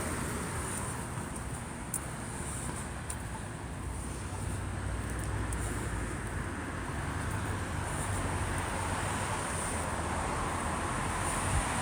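Steady city street traffic noise: a low rumble of passing vehicles under a wash of road hiss that swells near the end.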